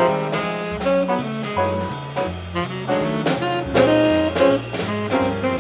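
Jazz-style background music with horns over a steady beat and a stepping bass line.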